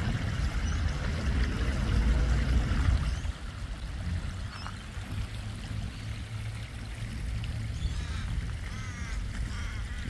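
Water spilling over a small rock weir into a pond, with a low rumble that drops away about three seconds in. From about eight seconds in, ducks quack in a run of short repeated calls.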